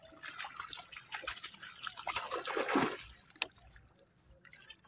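Faint, irregular splashing and trickling of pond water at the bank, with scattered small clicks. It quietens after about three seconds, apart from one sharp click.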